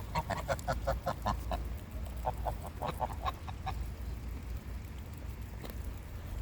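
Geese calling in two quick runs of short, clipped notes, about five a second, the second run starting about two seconds in.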